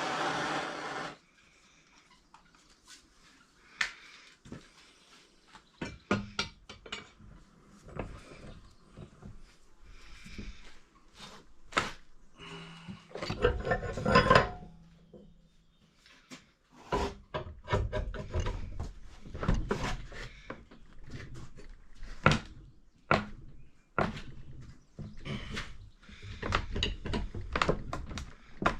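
A steady hiss cuts off about a second in, followed by irregular metal clanks, knocks and scraping as a heated steel mower blade is worked back straight.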